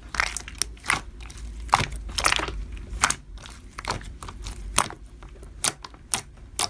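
Slime being pressed and squished by hand, giving irregular crisp pops and crackles, a few each second.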